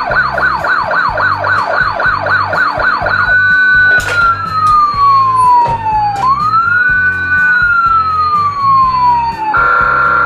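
Toy fire truck's electronic siren: a fast yelp of about four falling sweeps a second, switching after about three seconds to a slow wail that falls, rises and falls again, then a steady horn-like tone near the end.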